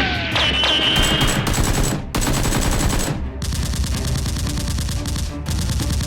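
Rapid automatic gunfire sound effects in bursts, broken by short pauses, with a brief high whizzing tone near the start, over background music.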